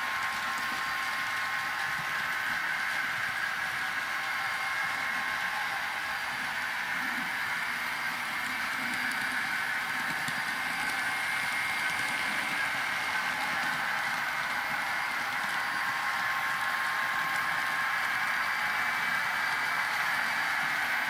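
N scale model locomotive's DCC sound decoder playing a steady running-locomotive sound through its tiny onboard speaker, tinny with little bass and a steady tone in it.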